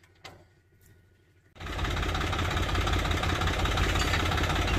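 A few light clicks, then from about a second and a half in a New Holland tractor's diesel engine runs steadily, loud, with a deep rumble.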